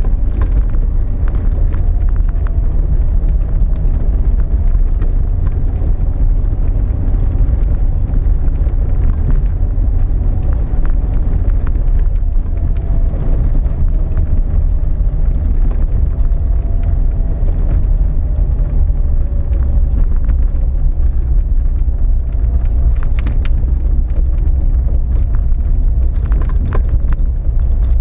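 Steady low rumble of a 4x4's engine and tyres on a rough track, heard from inside the cabin, with a faint wavering whine and occasional sharp clicks and rattles.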